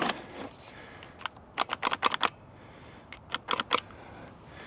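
Oregon CS1500 electric chainsaw's trigger switch clicking in two quick clusters with the motor silent: the saw won't run because its chain brake has tripped.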